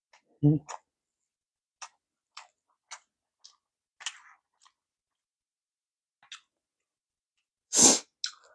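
Close-miked chewing of sushi: soft, sparse wet mouth clicks, with a louder low mouth sound about half a second in. Near the end comes a loud, sharp mouth sound as the next piece of nigiri is taken into the mouth.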